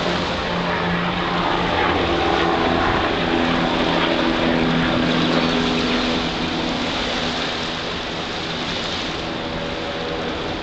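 Drone of a passing engine, several steady tones whose pitch shifts slowly, swelling in the middle and fading after about six seconds, over a steady rushing noise.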